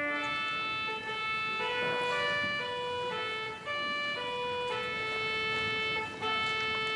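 Church organ playing a slow melody in steady held notes, with short breaks between phrases.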